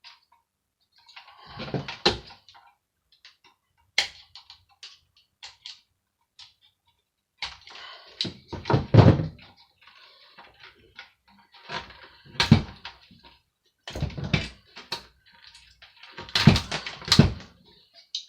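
Irregular thunks, knocks and clatter of a hand dryer's parts being handled and pulled about while it is dismantled for scrap, in several loud bursts with short quiet gaps between.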